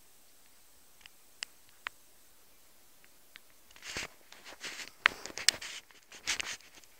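A few faint clicks, then from about four seconds in, irregular footsteps crunching on snow.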